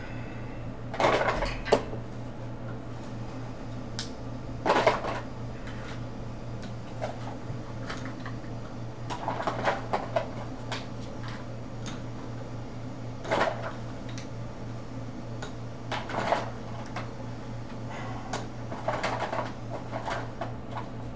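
Coloring supplies being handled, with short clatters and clicks every few seconds over a steady low electrical hum.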